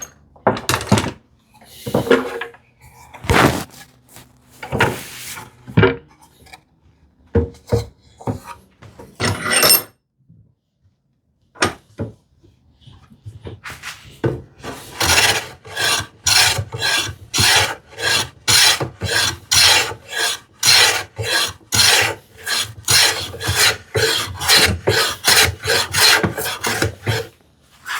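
Hand tools working wood: a few separate, irregular strokes, a short pause, then a long run of quick, even strokes about two a second.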